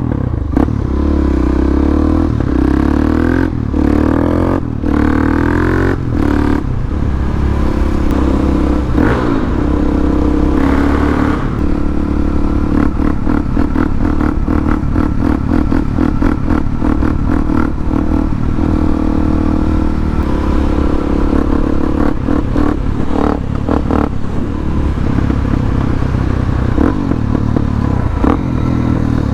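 Harley-Davidson Dyna V-twin motorcycle engine running under way. The revs rise and fall with gear changes in the first ten seconds or so, then settle into steadier cruising.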